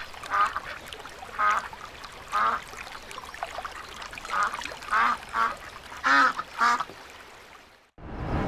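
Ducks quacking: a series of about eight short, separate quacks, two pairs coming close together in the second half, which cut off abruptly just before the end.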